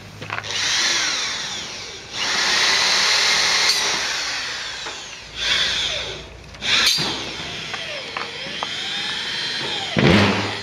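Corded electric drill running in several short runs against a cement-board wall panel, its motor speeding up and winding down between runs, with a knock near the end.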